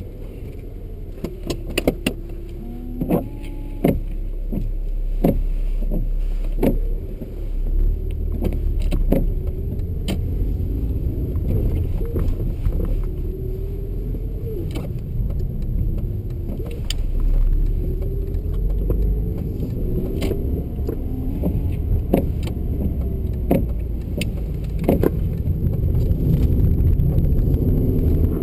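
A BMW driving, heard from inside the cabin: the engine note rises and falls several times as the car accelerates and changes gear, over a steady low road rumble. Frequent short clicks and rattles run through it.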